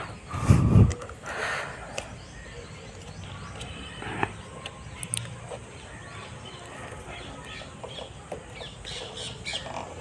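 Birds squawking and chirping, with a loud low thump about half a second in and scattered light clicks and knocks after it.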